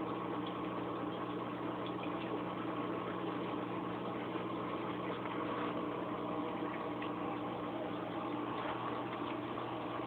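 Aquarium pump humming steadily, a constant low mains hum with a hiss above it.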